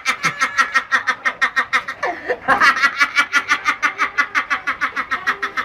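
High-pitched laughing, a fast, even run of 'ha' pulses about eight a second, broken once by a quick breath about two seconds in.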